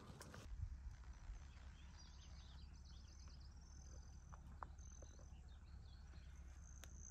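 Faint songbird chirps and short trills, several in a row through the second half, over a low steady background rumble.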